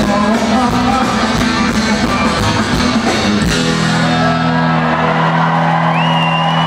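Live country-rock band with electric guitar and drums, recorded from within the crowd. It plays with some singing, then about halfway through a strike gives way to a held chord ringing out, and a high steady whistle-like tone joins near the end.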